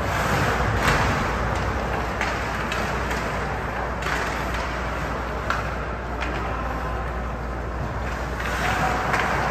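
Ice hockey game sound: a steady wash of rink noise with a low hum, broken by a handful of sharp clacks of sticks, puck or boards.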